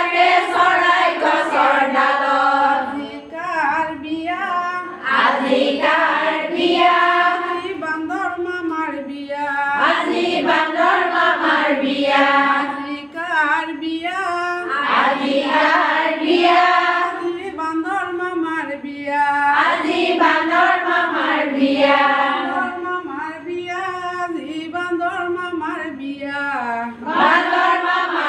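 Women singing a song with their voices alone; no instruments are heard.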